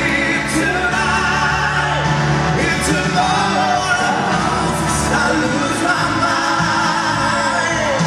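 A male lead vocalist sings live into a handheld microphone with wavering, held notes over a loud pop backing track.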